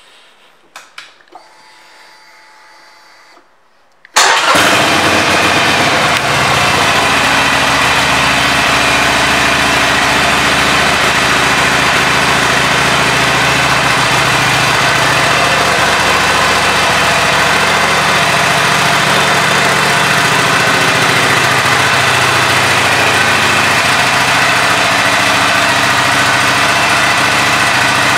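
A 2022 Harley-Davidson Iron 883's air-cooled 883 cc V-twin is started about four seconds in. It catches at once, runs a little louder for a couple of seconds, then settles into a steady idle.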